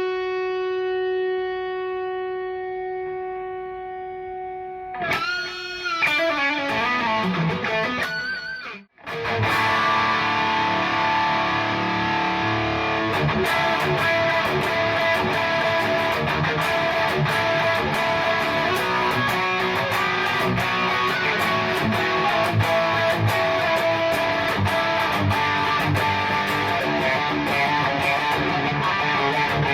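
PRS SE Custom 24 electric guitar played through an amplifier: a long held note that fades, then wavering notes that slide down in pitch, a sudden stop, and then about twenty seconds of dense, distorted playing.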